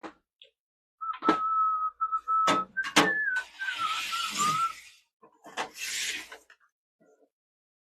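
Someone whistling a few notes: one held note, then a wavering, falling one. Three sharp knocks come through it, and there are two short bursts of hiss.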